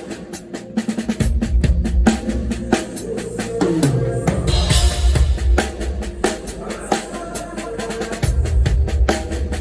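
Live drum kit playing a groove of bass drum and snare hits, with low bass notes underneath and a cymbal crash about halfway through.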